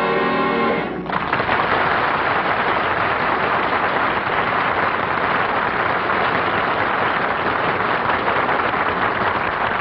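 A held orchestral closing chord cuts off about a second in. Then an audience applauds steadily.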